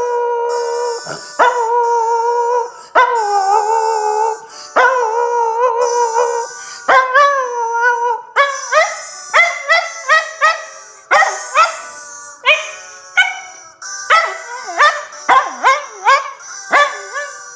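Miniature Schnauzer howling along to music played from a phone, in long, wavering held notes that give way after about eight seconds to a quicker run of short notes, about two a second.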